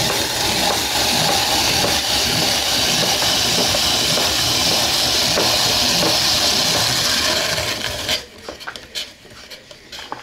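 Food sizzling loudly in hot oil in a frying pan, a steady hiss that cuts off about eight seconds in, followed by a few light clicks of utensils.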